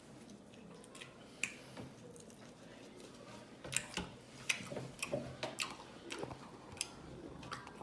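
A person chewing food close to the microphone: a few scattered clicks at first, then from about halfway in a quick run of wet mouth clicks and smacks.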